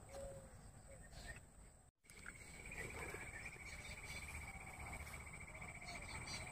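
A steady, finely pulsed high insect trill starts just after a brief dropout about two seconds in, over a constant high insect whine. A few faint short calls come before the dropout.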